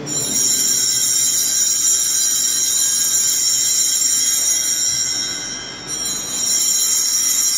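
Small altar bells ringing continuously, a dense high jingling that dips about five and a half seconds in and then rings out again, as at the elevation during Mass.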